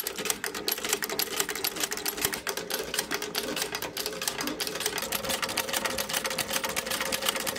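Singer 29K leather patcher sewing machine running fast, its needle mechanism making a rapid, even clatter of clicks. It runs without forming stitches because its bobbin is out of thread.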